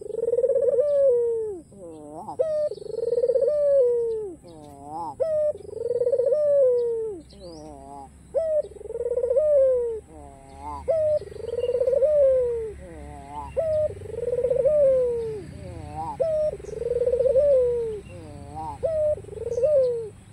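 White Barbary dove (ringneck dove) cooing over and over, a long coo about every two to three seconds with quick, broken notes between the coos.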